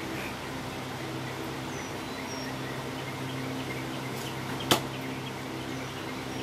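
A single sharp thunk of a heavy 14-inch Bowie throwing knife, thrown with two spins, striking the wooden target round, about two-thirds of the way through, over a steady low hum.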